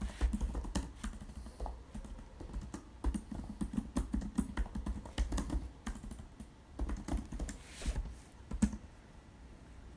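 Typing on a computer keyboard: quick, irregular runs of key clicks that stop about a second before the end.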